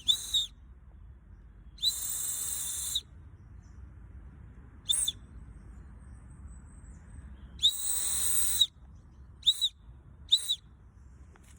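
A whistle sending Morse code for the letters G and D, short for 'good': long and short blasts, a long one, a short one, then a long one and two short ones close together.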